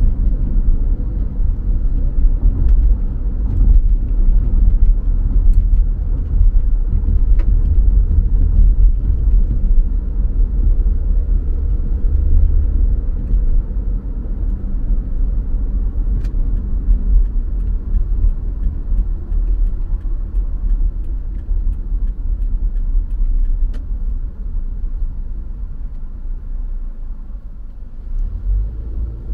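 Low, steady rumble of a car driving: road and engine noise, easing a little near the end before picking up again.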